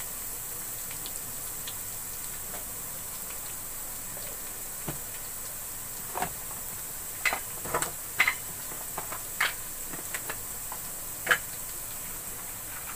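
Garlic paste, whole dried red chillies and whole garam masala frying in hot oil: a steady sizzle. Scattered sharp pops and crackles come more often in the second half.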